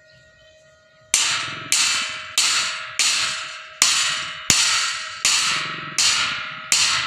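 Claw hammer striking a steel rod again and again, about one and a half blows a second, each blow ringing out and fading. The hammering starts about a second in.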